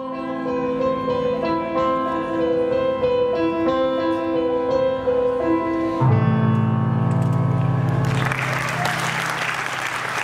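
Slow piano melody of held notes; a low bass chord comes in about six seconds in. Applause rises under the music near the end.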